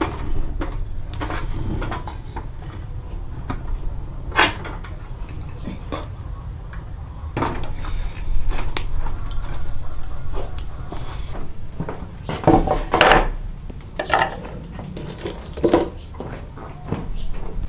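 Irregular clinks and knocks of dishes, pots and utensils being handled, over a steady low hum.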